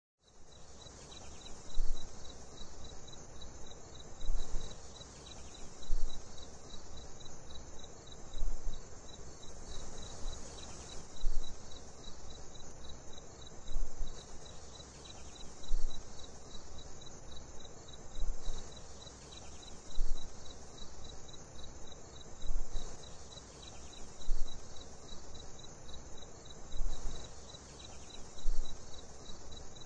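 Crickets chirping as an ambience bed: a steady, rapidly pulsing high trill, with louder swells about every two seconds.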